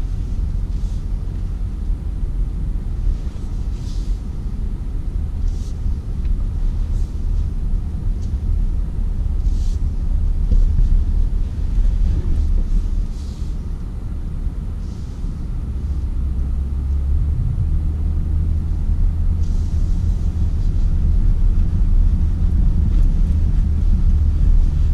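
Low, steady rumble of a BMW X5 xDrive50i crawling over a dirt off-road course, coasting down the last hill with the driver's feet off the pedals. A few brief higher scrapes or rattles come and go.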